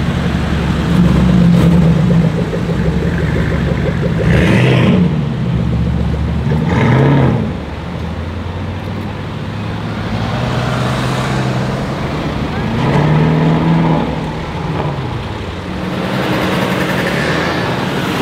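Cars driving past one after another in street traffic, their engines accelerating and revving. Engine notes rise and fall in pitch several times as each passes; among them is the Gemballa Tornado, a heavily modified Porsche Cayenne.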